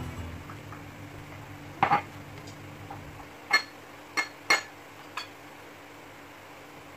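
Kitchenware clinking on a counter while bread is rolled flat: a couple of sharp clinks about two seconds in, then four more over the next few seconds, each with a short ring like crockery or a utensil knocking a plate.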